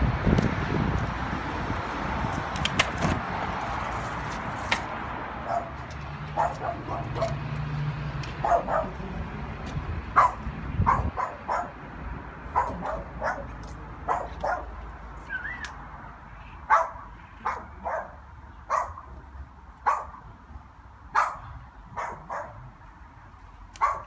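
A dog barking over and over, short barks about once a second, with a steady rushing noise in the first few seconds.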